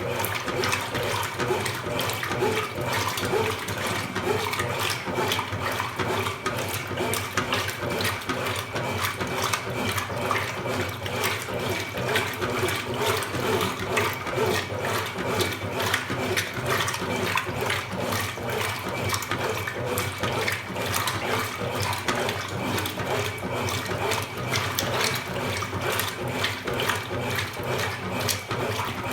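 Consul Super Cargo 8 kg (CWL08C) washing machine running mid-wash, with water splashing and sloshing steadily in the tub.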